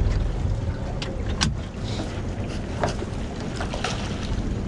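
Steady low rumble of wind and water around a small aluminium boat, broken by a few sharp knocks. The clearest knock comes about a second and a half in, and there is a splash in the water near the end.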